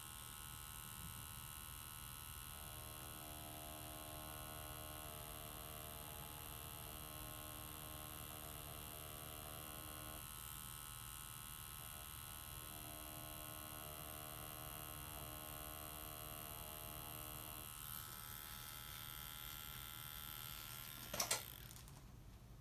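Cartridge tattoo machine fitted with a 3-round liner needle, running with a steady electric buzz while lining. Its sound changes twice as it works. About 21 seconds in, a couple of sharp clicks come as it stops.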